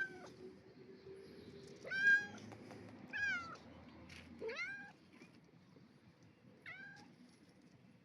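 Kittens mewing: about five short, high-pitched mews a second or two apart, the loudest about two seconds in.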